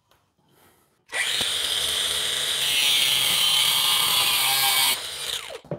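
Angle grinder with a cutoff wheel cutting through an M8 stainless steel threaded stud held in a vise. It starts about a second in, runs steadily with a shrill high edge for about four seconds, then winds down near the end as the cut is finished.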